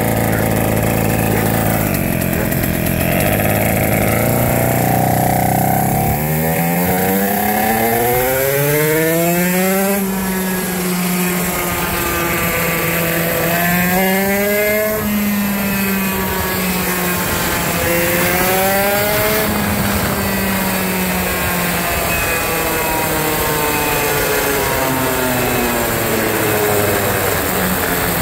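Parilla 125cc two-stroke go-kart engine under way, revs climbing steadily to a high pitch and holding there. It eases off and climbs again twice, then gradually winds down near the end.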